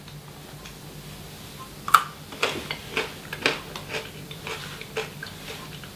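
A person biting and chewing a raw carrot stick: a run of short, crisp crunches, irregular, starting about two seconds in and stopping about a second before the end.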